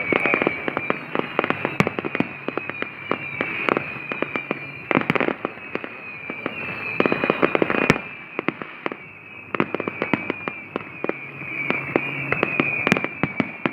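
Fireworks display: many sharp bangs and crackles in quick, irregular succession, denser in clusters around five and seven seconds in.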